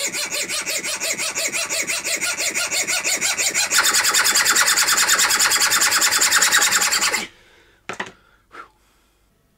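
Junior hacksaw sawing back and forth across the steel shaft of a small Mabuchi RF-370 DC motor in quick, even rasping strokes, getting louder about four seconds in and stopping about seven seconds in, followed by two light clicks. The blade is making little headway, which the repairer puts down to the shaft being hardened steel.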